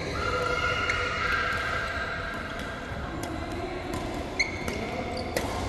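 Badminton rally on an indoor court: a few sharp racket-on-shuttlecock hits, the clearest about four and a half and five and a half seconds in, with high squeaks of shoes on the court floor.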